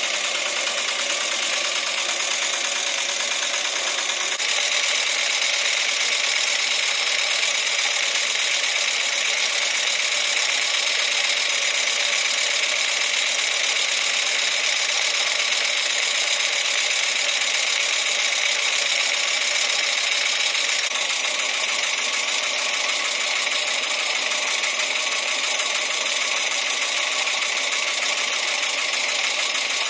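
PM Research No. 7 model steam engine running steadily on steam from a gas-fired copper boiler: a constant hiss with a rapid, even beat.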